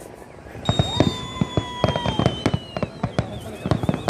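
Fireworks going off: a rapid string of sharp bangs from about half a second in, with high whistles sliding slowly down in pitch and a warbling whistle near the end.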